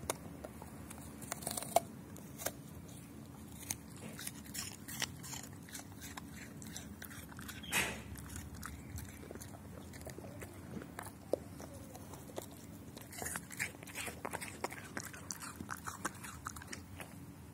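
Labrador retriever biting and chewing an apple: irregular crisp, wet crunches, in clusters near the start and through the second half, with a lull in the middle.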